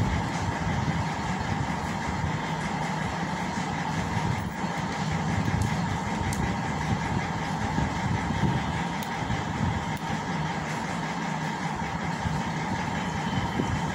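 Steady mechanical drone with a constant hum, unchanging throughout.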